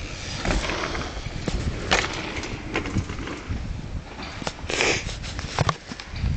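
Handling noise from a handheld camera: rustling, crackling and scattered knocks over a low rumble, with a short hiss a little before five seconds in.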